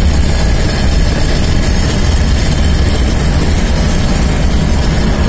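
Vehicle driving along a road: a steady, loud, low rumble of engine, tyres and wind, heard from inside the vehicle.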